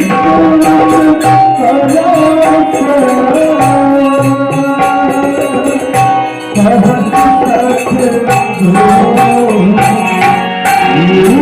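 Hindi devotional song music: a melody over a steady drum beat, with a brief drop in level about six seconds in.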